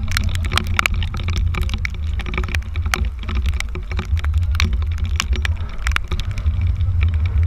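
Wind buffeting a pole-mounted action camera as a loud steady low rumble, with frequent sharp ticks of raindrops striking its housing.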